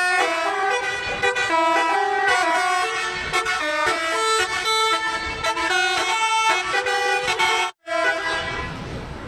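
Tour bus's telolet horn, a bank of air horns sounded in quick sequence, playing a fast tune of changing notes. It cuts out sharply about eight seconds in, sounds briefly again, then stops.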